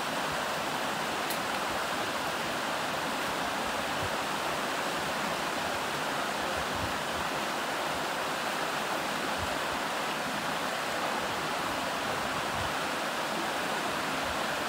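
Stream water rushing over rocks and small rapids: a steady, even rush.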